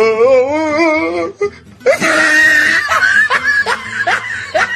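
Loud human laughter: a wavering, cackling laugh for about a second, then after a short break a breathy, shrieking burst and a run of quick repeated laughs.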